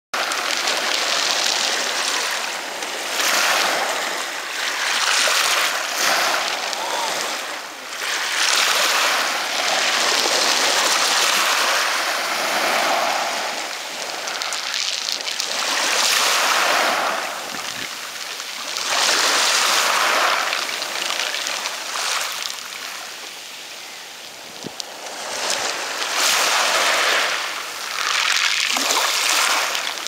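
Sea surf washing over a pebble beach: a hiss of waves that swells and fades every few seconds.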